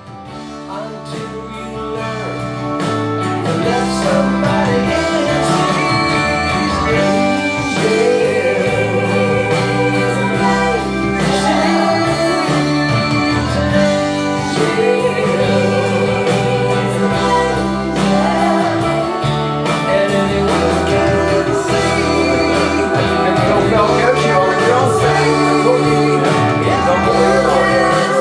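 A live band playing a song, with a melody line that may be sung. It builds in the first few seconds and then keeps up a steady groove.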